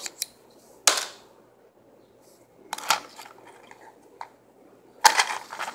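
A match struck against a matchbox's striker strip to light it: three short scrapes about two seconds apart, the last one longer.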